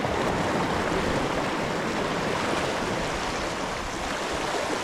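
Sea water washing and swirling around rocks at the shoreline, a steady rushing wash without breaks.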